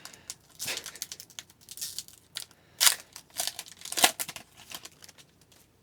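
Foil wrapper of a hockey card pack crinkling and tearing as it is opened, with cards rustling as they are handled. Irregular crackles, a few sharper rips about three and four seconds in.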